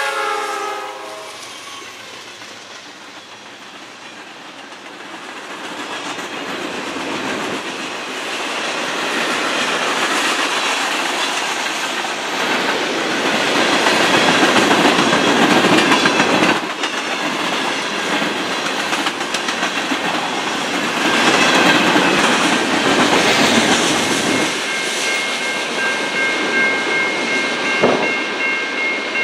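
Norfolk Southern freight train passing close by: the locomotive horn ends about a second in as the diesel locomotives go past, then a long run of tank cars and covered hoppers rolls by with wheels clacking over rail joints. A steady high tone comes in near the end.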